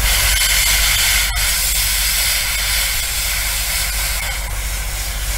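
Airbrush spraying a coat of track-dirt weathering paint onto a model wagon: a steady hiss of air and paint.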